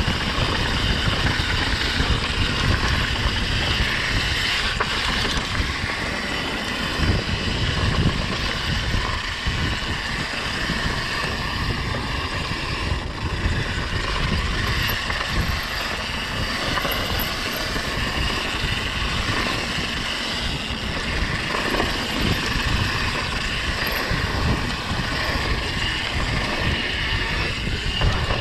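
Mountain bike descending a dirt trail: wind buffeting the camera microphone, with tyres rolling over the ground and the bike rattling.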